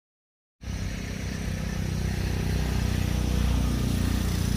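Dead silence, then about half a second in a steady low rumble cuts in abruptly with an even hiss above it, and holds.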